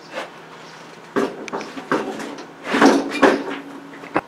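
Several irregular knocks and clunks of things being handled and moved about, with a short cluster of clatter a little before the end.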